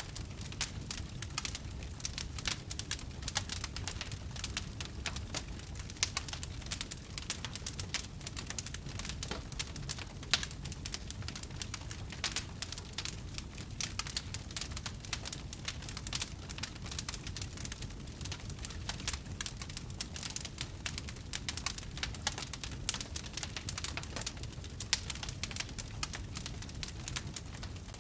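Wood campfire burning steadily, crackling with dense fine pops and a few sharper snaps, over a low rumble of the flames.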